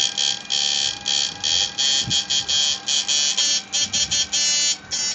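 High-pitched electronic whine of a 12 V twin-transformer electrofishing inverter, switched on and off in repeated bursts that grow shorter and quicker toward the end before cutting off. The machine runs at a very high switching frequency.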